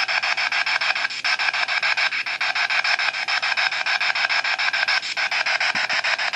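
Spirit box sweeping the FM radio band: a steady hiss of static, chopped into rapid, evenly spaced pulses as it skips from station to station.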